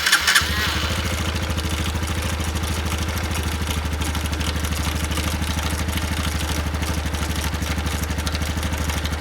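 Honda Super Cub Pro 110 (JA10) single-cylinder four-stroke engine started on the electric starter, catching within half a second and settling into a steady idle. A clattering noise runs through the idle, which the owner suspects comes from the clutch.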